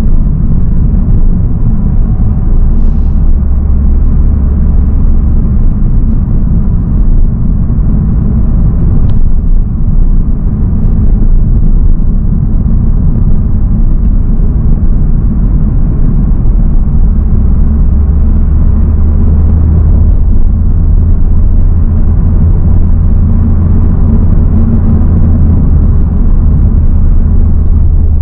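Honda Civic Type R FL5 on the move, heard from inside the cabin: its 2.0-litre turbocharged K20C inline-four and the road noise make a steady low rumble. The deepest part of the rumble grows heavier in the first few seconds and again from about two-thirds of the way through.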